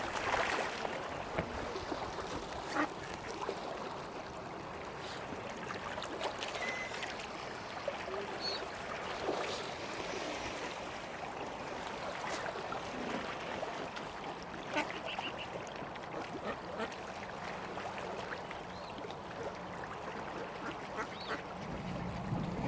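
Mallard ducks quacking: scattered short calls over a steady outdoor background.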